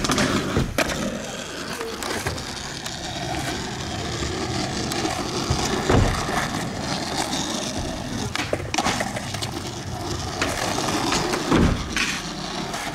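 Skateboard wheels rolling over rough asphalt with a steady rumble, broken by sharp clacks and thuds of the board: one as it comes off a box ledge about a second in, and others around six seconds and near the end.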